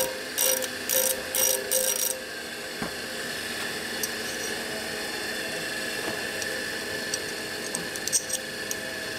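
A Harley panhead pushrod cover touched lightly against a spinning bench disc sander, five short grinding scrapes in the first two seconds, followed by the steady hum of the running sander motor. Light metal clicks near the end as the cover pieces are handled.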